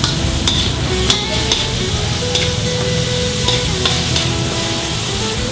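Chopped pork, chicken and pork liver sizzling in hot oil in a wok, stirred with a metal spatula that scrapes and clicks against the pan several times.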